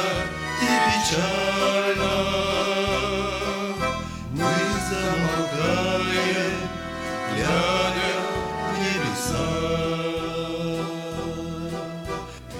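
Music with a steady, even bass beat under a gliding melody, with no words.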